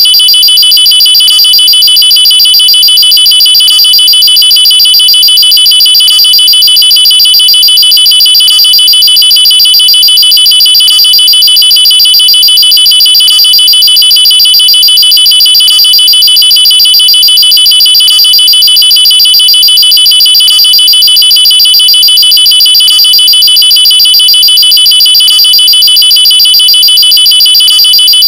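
Electronic nuclear-warning alarm: a loud, shrill tone pulsing rapidly at one constant pitch, not a rising and falling siren. A faint pattern repeats about every two and a half seconds.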